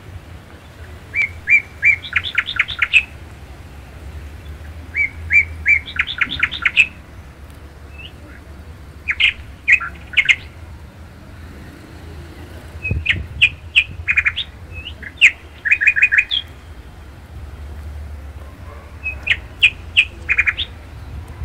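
A songbird singing short phrases of rapid, bright notes, about six phrases a few seconds apart. A steady low rumble sits underneath.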